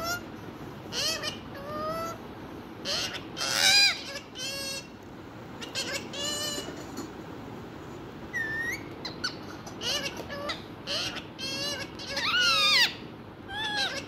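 Indian ringneck parakeet calling: a steady run of short squawks and calls that bend up and down in pitch. The loudest come about four seconds in and again near the end.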